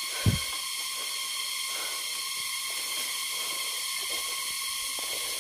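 Steady high hiss throughout, with a single low thump just after the start and faint, scattered rustling.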